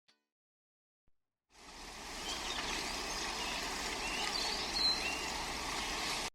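Steady rush of flowing water fading in after a second and a half of silence, with a few short high chirps over it, cutting off abruptly at the end.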